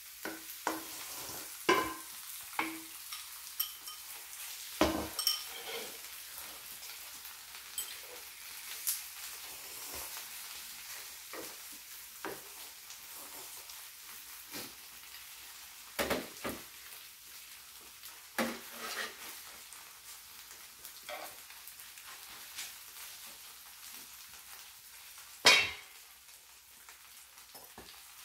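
Ramen noodles and pajeon sizzling on an electric griddle while they are stirred with wooden chopsticks: a steady frying hiss with scattered clicks and scrapes of utensils on the pan. One sharp clack near the end is the loudest sound.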